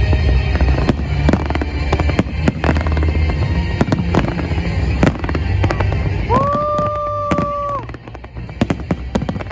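Fireworks display: rapid, dense bangs and crackling of shells bursting over a deep rumble, thinning out near the end. About six seconds in, a high pitched tone rises in, holds for about a second and a half and drops away.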